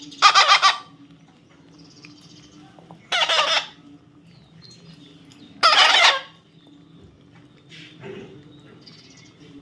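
Parrot giving three loud, harsh squawks, each about half a second long and a few seconds apart, over a faint steady low hum.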